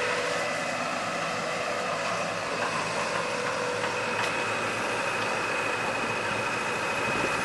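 A motor running steadily, with a constant low hum and a thin high whine held at one pitch.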